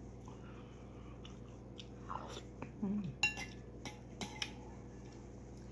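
Metal spoon scraping and clinking against a ceramic bowl while scooping thick porridge, with a few sharp clinks that ring briefly about two to four and a half seconds in. A short hum from the eater comes partway through.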